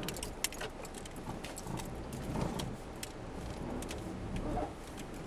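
Cabin noise of a 1993 Chevy Corsica on the move: a low, steady hum from its small four-cylinder engine and the road, with scattered light ticks and rattles.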